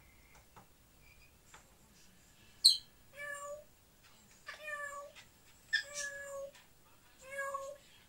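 African grey parrot calling: a sharp, high, very short squeak, then four drawn-out calls that sound like a cat's meow.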